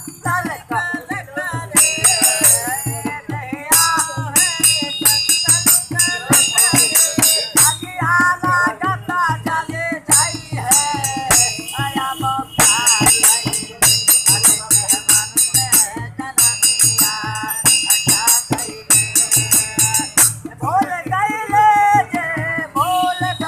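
A man singing a folk song in phrases with short breaks, accompanied by a dholak barrel drum beaten in a steady rhythm and a pair of small brass hand cymbals (manjira) clashed in time, ringing brightly.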